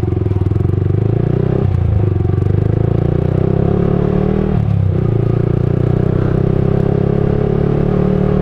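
Motorcycle engine running steadily while riding, its note briefly dropping and picking up again twice, about two and five seconds in.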